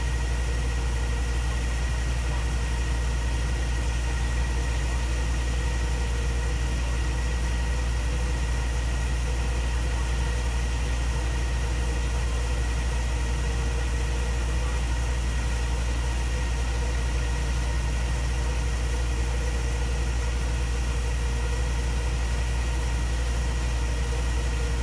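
Steady machinery drone: a strong low hum with a constant high whine over it, unchanging throughout, like an engine idling.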